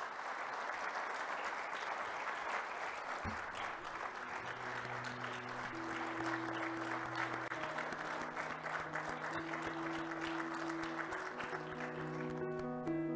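Audience applauding steadily, with instrumental music coming in underneath about four seconds in. The clapping fades out near the end as the music takes over.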